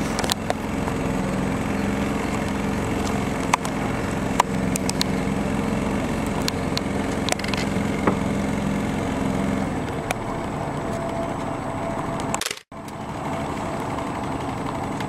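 Small boat engine running steadily under way, with scattered sharp clicks and knocks over the hum. The steady hum fades out about ten seconds in, and the sound cuts out abruptly for a moment near the end.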